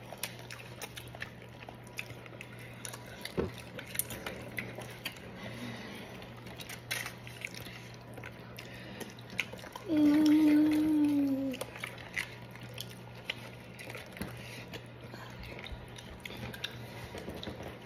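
Close-up eating sounds: chewing, lip smacks and small wet clicks from eating fish and plantain by hand. About ten seconds in, a held hum of one steady pitch lasts a second and a half, over a low steady hum.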